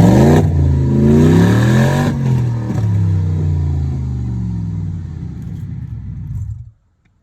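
BMW 745i V8 with its catalytic converters removed, revved twice in quick succession, then running down slowly as the revs fall, before cutting off suddenly near the end. The missing catalytic converters make the exhaust loud.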